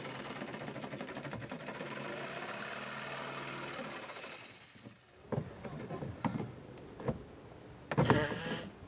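Corded electric jigsaw cutting an access-port hole in a sailboat deck, running steadily, then winding down and stopping about four to five seconds in. After it stops come scattered knocks and clicks of handling, with a louder burst of noise near the end.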